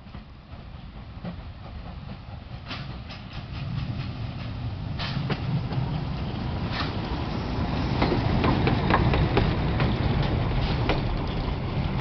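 Narrow-gauge steam tank locomotive 99 788, a DR class 99.77–79, and its coaches rolling past, a rumble that grows steadily louder as the train draws near, with sharp clicks of wheels over the rail joints. It is loudest as the locomotive and first coaches go by, near the end.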